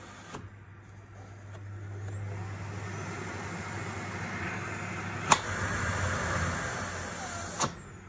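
Electrolux Pure D8.2 Silence vacuum cleaner motor spinning up with a rising high whine, running steadily for a few seconds, then cutting out with a click near the end: the fault where the motor stops by itself after a few seconds on maximum or Smart power, blamed on the electronic board. A sharp click sounds about halfway through the run.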